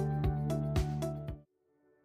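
Background music with a steady beat that cuts off suddenly about one and a half seconds in, leaving near silence.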